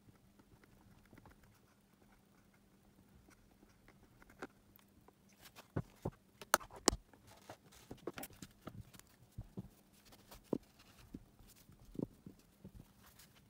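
Handling noise of a small battery pack: quiet at first over a faint steady hum, then from about five seconds in an irregular run of light taps, clicks and paper crinkles as the pack is set down on a paper towel and pressed with the fingers.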